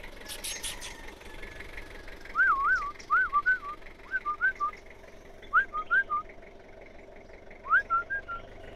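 A person whistling to call a dog: five short phrases of smooth rising and falling notes, separated by pauses, starting about two seconds in. A faint steady engine hum runs underneath.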